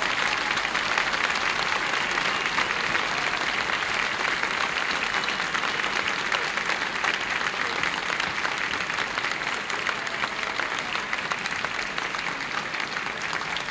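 Audience applauding, a dense patter of many hands clapping that holds steady and eases off slightly near the end.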